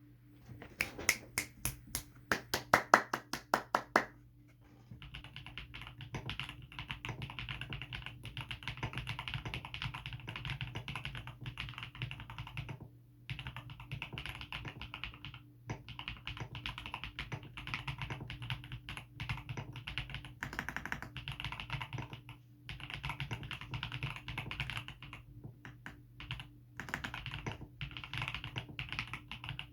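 Typing on a stock GMK67 mechanical keyboard with tactile Akko V3 Pro Cream Blue switches and Olivia-clone keycaps: about a dozen slow, separate keystrokes at first, then fast continuous typing with a few short pauses. A steady low hum sits underneath.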